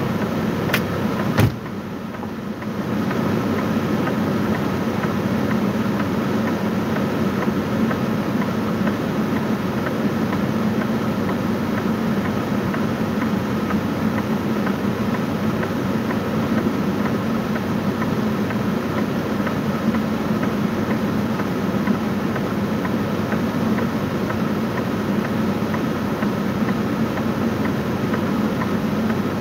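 Semi truck's diesel engine idling steadily, heard from inside the cab. A sharp knock comes about a second and a half in.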